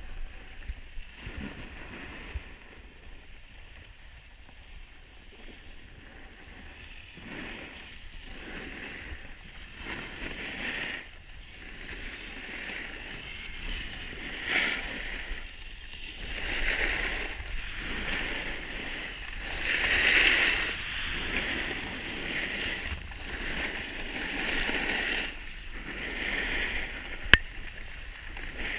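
Edges carving over packed snow on a groomed run: a scraping hiss that swells and fades with each turn, louder in the second half. One sharp click near the end.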